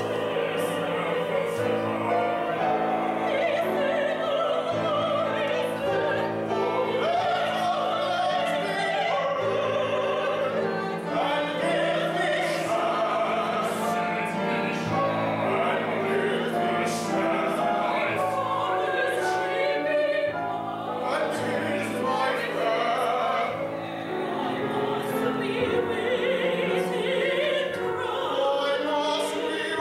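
Operatic singing, held notes with vibrato, over a piano accompaniment.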